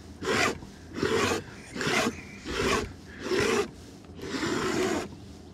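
Palette knife scraping paint off a painting surface in about six short rasping strokes, a little under a second apart, the last one longer; the artist is clearing away a study he judged not worth continuing.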